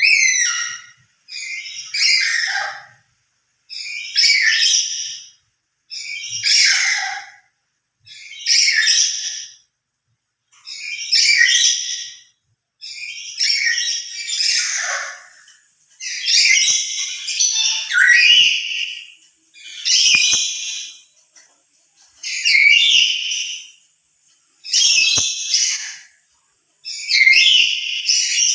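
A black-capped lory (nuri) screeching loudly over and over, a harsh call about a second long roughly every two seconds.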